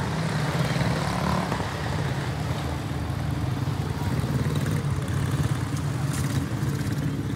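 A pack of quarter midget race cars with Briggs & Stratton Animal single-cylinder four-stroke engines running at racing speed, droning steadily as they come down the straight and pass by.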